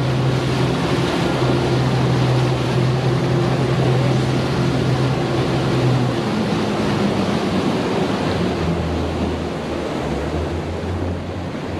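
Boat engine running under way, with water rushing and splashing along the hull and wind on the microphone. The engine note drops to a lower pitch about halfway through.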